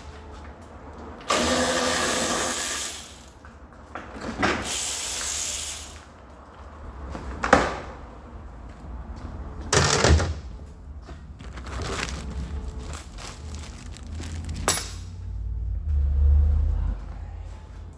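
A power tool runs twice, each time for about a second and a half, turning out bolts on the engine mount. Several sharp metallic knocks of tools and parts follow.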